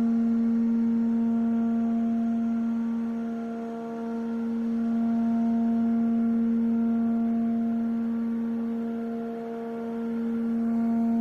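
Background music: a sustained, singing-bowl-like drone on one low note with overtones, swelling and fading about every six seconds.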